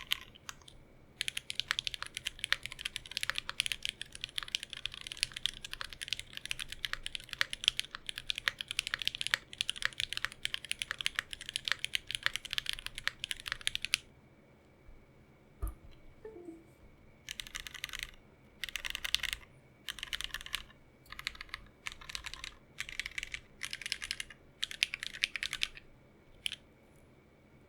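Typing on an Aria TKL mechanical keyboard with lubed and filmed Cherry MX Black Ultraglide linear switches, an aluminium plate in gummy O-ring mount, and GMK ABS Cherry-profile keycaps. There is fast continuous typing for about thirteen seconds, then a pause, then short separate runs of keystrokes.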